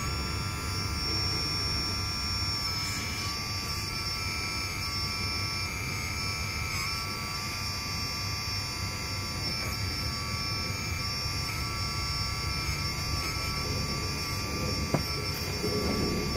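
Hydraulic oil pump of an RC hydraulic excavator running, a steady electric whine of several held tones over a low hum, with a single click near the end.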